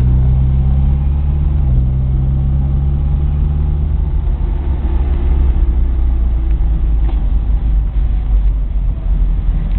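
Classic Mini's engine and road noise heard from inside the cabin while driving. The engine note drops about two seconds in and keeps falling for a few seconds as the revs come down, then runs on steadily.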